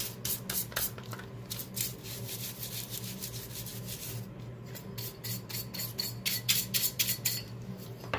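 Bristle brush scrubbing dust and buildup off an exhaust fan's metal motor housing in quick back-and-forth strokes, about four a second. The strokes thin out for a couple of seconds midway, then come fast again.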